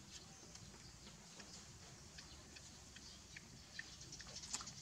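Near silence: faint room tone with scattered soft ticks and a couple of tiny high chirps, the ticks a little denser near the end.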